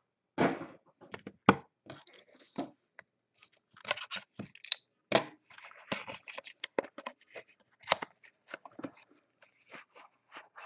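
A cardboard trading-card box and its wrapping being handled and torn open: a run of short rips, rustles and sharp clicks and taps, the loudest about a second and a half in and near eight seconds.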